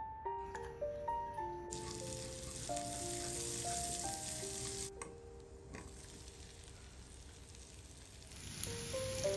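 Butter sizzling and frying in a nonstick pan, with chopped garlic being stirred through it. The sizzle starts about two seconds in and drops out briefly midway. Gentle melodic background music plays over it.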